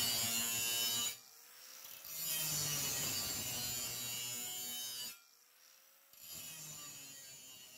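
Angle grinder with an abrasive disc grinding the edge of a steel keel plate in three passes, with short breaks about a second in and about five seconds in. The last pass fades out.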